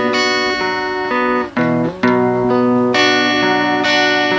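Song accompaniment led by guitar, playing sustained chords that change about once a second, with two brief drops in loudness near the middle.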